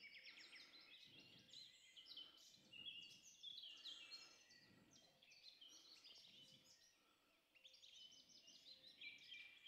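Faint dawn chorus of many songbirds singing at once, with dense overlapping chirps and song phrases and a brief lull a little past the middle. It is a field recording played back over the hall's loudspeakers.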